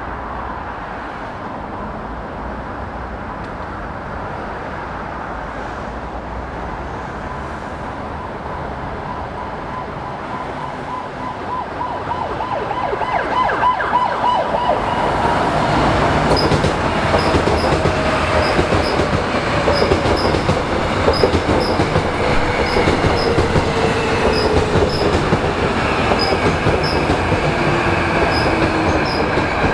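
Seoul Subway Line 2 electric train coming into the station. A steady rumble grows much louder about twelve seconds in. Then a motor whine falls slowly in pitch as the train slows, with regular high ticks over it.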